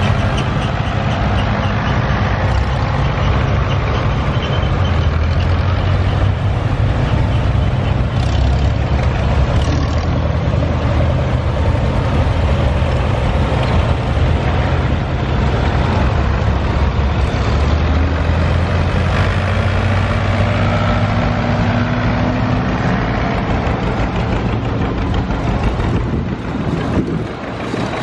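A line of vintage farm tractors, among them a blue Ford loader tractor and red Farmalls, driving past one after another, their engines running steadily with a deep, even note. The engine sound swells and eases as each tractor passes and dips briefly near the end.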